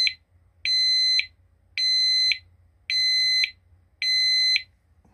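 Kryptonite alarmed motorcycle disc-brake lock giving its warning beeps after being moved while armed: a shrill electronic beep about half a second long, repeating about once a second, four times.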